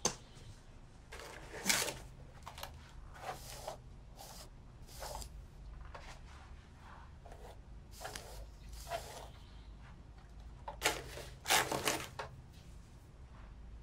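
Soft, scattered rustles, taps and knocks of small things being handled in a quiet room. Near the end a handbag is rummaged through, and those are the loudest sounds.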